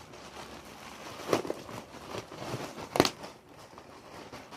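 Crinkling and rustling of packaging as a shirt is unwrapped and unfolded by hand, with two sharper crackles, one about a second in and a louder one near three seconds.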